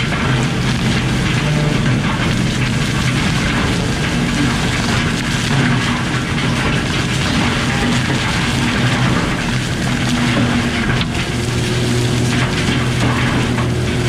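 Skid-steer disc mulcher grinding brush and saplings, driven by a Kubota SVL95 track loader whose diesel engine runs steadily under load. It makes a loud, continuous low drone with a rushing noise over it and occasional sharp knocks as wood is shredded.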